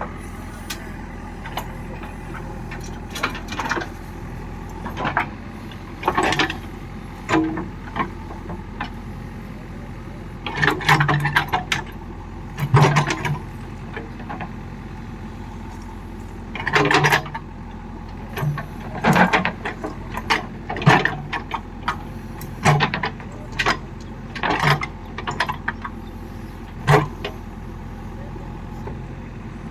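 A diesel farm vehicle engine running steadily, with a series of irregular metallic clanks and rattles over it, loudest around the middle of the stretch.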